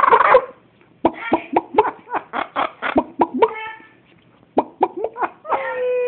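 Pet parrots calling: a fast run of short, sharp chirps at about five a second, a brief pause, then a longer squawk that falls in pitch near the end.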